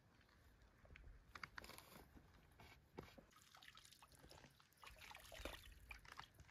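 Near silence, with a few faint, scattered clicks and ticks.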